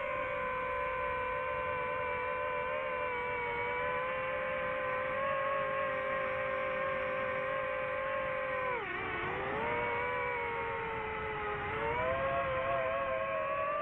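DJI FPV drone's propellers and motors whining steadily in flight; the pitch dips briefly about two-thirds of the way through as the throttle comes off, then climbs again near the end.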